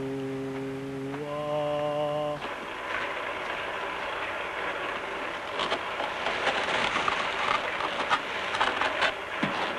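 A held, drone-like tone that shifts pitch twice and stops about two and a half seconds in. After it, a cement mixer churns its load with a steady gravelly rattle and scattered clicks and scrapes.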